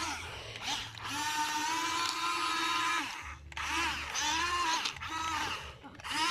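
Toy RC excavator's small electric motors whining in several bursts, pitch steady at times and rising and falling as the arm moves, with short pauses between runs.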